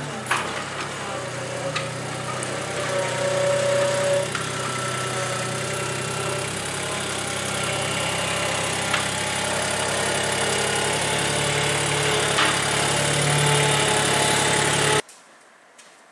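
Skid steer's engine running steadily as it pushes an old tractor across wet concrete, with a few light clanks. The engine sound cuts off suddenly near the end, leaving a quiet room with small knocks.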